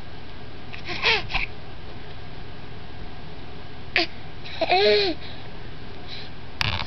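A baby cooing and squealing in short pitched bursts about one, four and five seconds in, the last one rising and falling in pitch. A brief sharp noise near the end.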